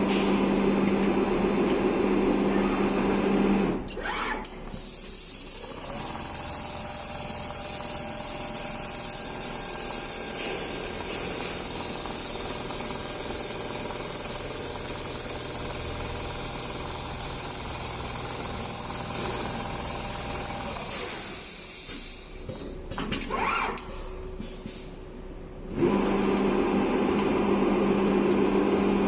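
Automatic large-panel sewing machine running. A loud, steady buzz in the first few seconds gives way to a steady high-pitched whir, and the buzz returns near the end.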